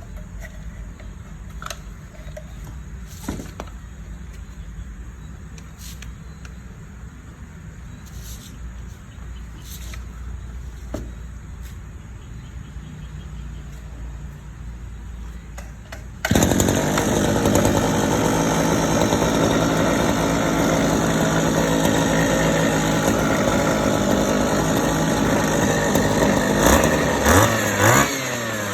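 Small petrol engine from a used brush cutter or chainsaw running on test, coming in abruptly about sixteen seconds in and then revved up and down a few times near the end. Before it, only a few faint knocks from handling.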